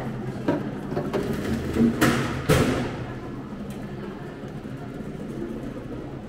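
A few sharp knocks, the loudest about two and a half seconds in, over a steady low hum.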